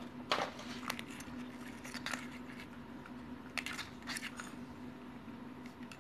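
Small clicks and light taps of wires and connectors being handled on a fluorescent lamp assembly, a few scattered knocks rather than a steady sound, over a faint steady low hum.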